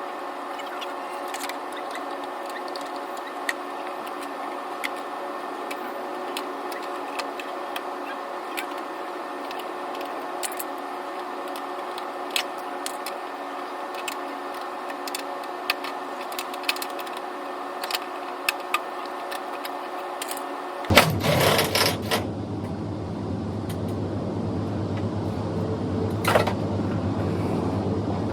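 Steady mechanical hum with many scattered light clicks and taps. About two-thirds of the way through it cuts to a lower steady rumble, with a few louder knocks.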